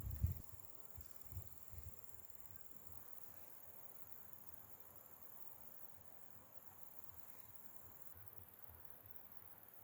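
Faint steady high-pitched drone of rainforest insects, one thin tone of which cuts off about eight seconds in. A few low thuds come in the first two seconds.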